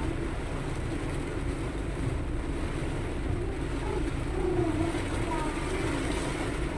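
Steady low rumble of a vehicle's engine and road noise in traffic.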